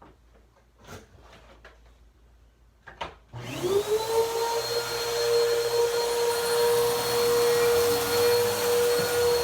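A few soft clicks, then a vacuum cleaner switches on about a third of the way in; its motor whine rises quickly and settles into a steady high running tone over a loud rush of air.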